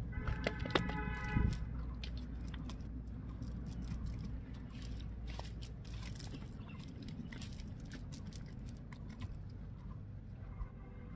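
A chicken calls for about a second and a half at the start, with a shorter call near the end. Underneath, faint rustling and light clicks of hands working through a wet cast net and leaf litter.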